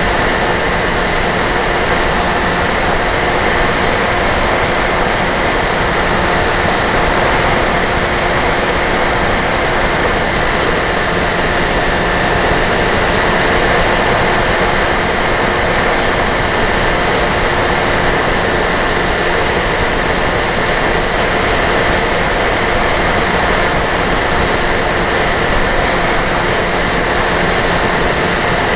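Steady rushing noise of an RC plane in flight, heard from its onboard camera: the Dynam Hawk Sky's electric motor and propeller running at constant speed with wind over the microphone, a few faint steady tones within it.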